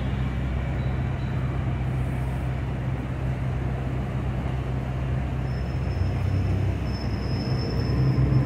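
Steady city traffic noise of idling and passing cars with a deep low rumble, and a faint thin high whine coming in about five seconds in.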